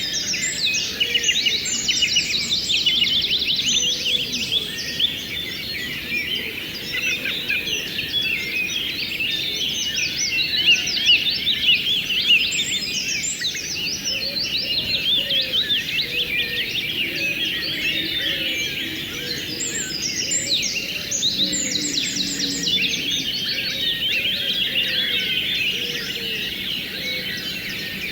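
A dense chorus of many birds chirping over a steady rush of flowing river water.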